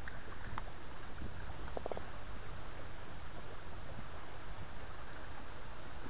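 Steady rumbling hiss of wind and water washing against the jetty rocks, with a few faint ticks about two seconds in.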